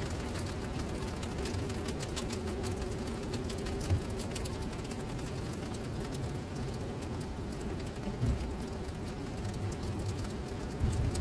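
Rain falling into standing water on paving: a steady patter of fine drop taps over a low rumble, with a faint steady hum running underneath and a short thump about four seconds in.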